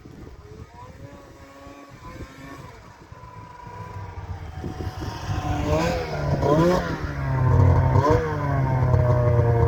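The ZL500's engine being revved, faint at first and getting steadily louder. About two-thirds of the way in it rises and falls in pitch several times as the throttle is blipped, then holds a loud, steady note.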